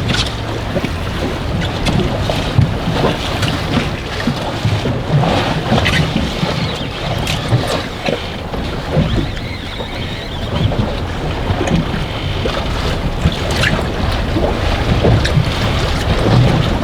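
Strong wind buffeting the microphone aboard a small boat, over water lapping at the hull, with scattered short clicks and knocks.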